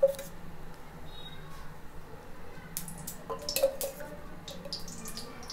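Quiet kitchen handling: a few light clinks and wet sounds from besan batter being worked in a steel tumbler, clustered around the middle, over a faint steady low hum.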